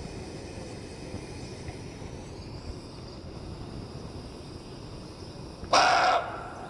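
A muntjac (barking deer) giving one short, loud bark about six seconds in.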